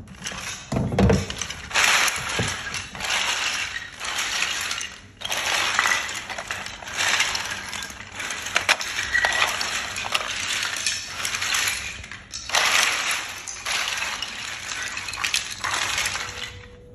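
Dry, hard agarwood chips clattering and rustling against one another as a hand rummages through the heap, in uneven surges of dense little clicks.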